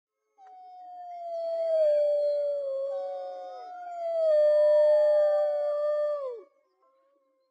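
A chorus of canines howling: two or more long, overlapping howls, each holding a steady pitch and dropping away at the end. They stop about six and a half seconds in.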